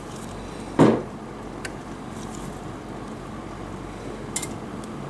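A heavy metal lure mold, its two halves just put back together, thuds once onto a wooden workbench about a second in, followed by a couple of light clicks. A steady hum runs underneath.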